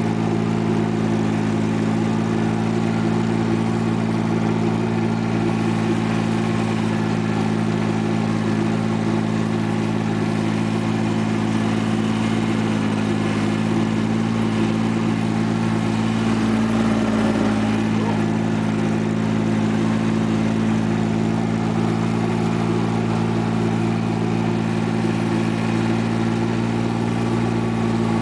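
Compact farm tractor's diesel engine running steadily as the tractor is driven, with a slight sag in engine speed about halfway through.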